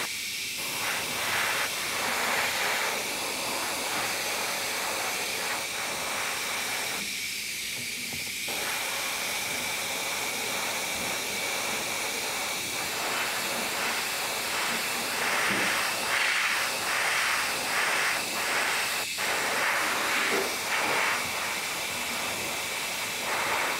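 Airbrush spraying paint: a steady hiss of air and atomised paint that stops briefly twice, at the very start and about seven seconds in.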